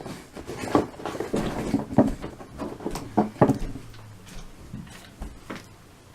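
GoPro retail packaging being handled and opened by hand: irregular clicks, taps and rustles of plastic and cardboard.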